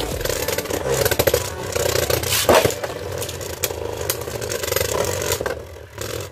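Two Beyblade Burst spinning tops, Hell Salamander and Z Achilles, spinning and colliding in a plastic Beyblade stadium. Their tips scrape steadily on the stadium floor, with a rapid rattle of clicks from the tops knocking together. A louder hit comes about two and a half seconds in, and the sound eases off near the end.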